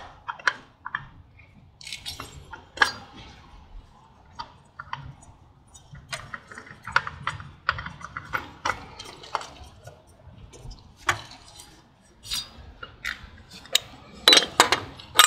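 Irregular metallic clicks and clinks of a hand wrench and parts knocking against the frame and engine of a Harley-Davidson Dyna, worked in the cramped space around its oil filter. The clicks come more thickly near the end.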